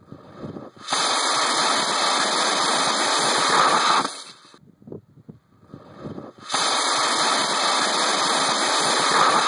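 K540 rocket motor firing on a static test stand: a loud, steady rushing roar of exhaust that starts sharply about a second in, holds for about three seconds and cuts off abruptly at burnout. The same roughly three-second burn is heard again from about six and a half seconds in.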